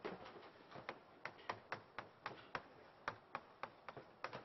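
Chalk tapping against a blackboard while writing: a faint, irregular run of sharp clicks, about three or four a second.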